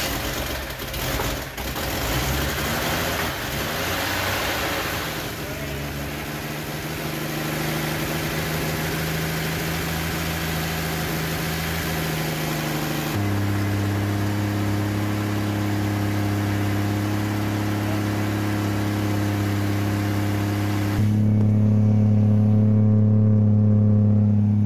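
Chevrolet 230 inline-six engine running steadily just after firing up for the first time following a rebuild. Its note jumps abruptly a couple of times, and near the end it is heard at the tailpipe through a glasspack muffler with a 2¼-inch pipe, louder.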